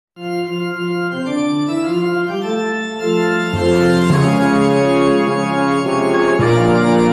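Organ playing the opening of a hymn: a melody of held notes, with chords and a bass line coming in about three and a half seconds in.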